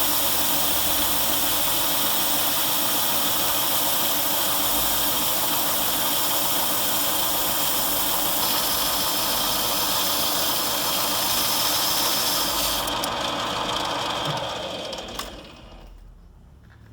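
Electric power tool with a spinning abrasive wheel running steadily, with a loud hiss from steel being cleaned against it. The hiss drops away about thirteen seconds in, and the motor winds down to a stop a couple of seconds later.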